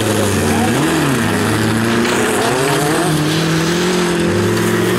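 Bilcross race cars' engines revving hard and easing off through a corner, several engines at once. One rises and falls in pitch about a second in, and one holds a steady high note over the second half.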